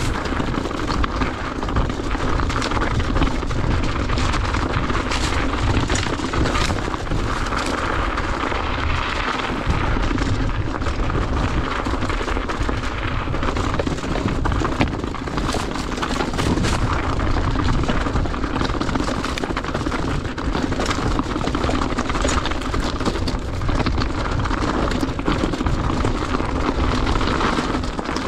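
Wind buffeting an action camera's microphone as a mountain bike rides fast down a rocky singletrack. The bike rattles and the tyres knock over stones in a steady stream of small clicks and knocks.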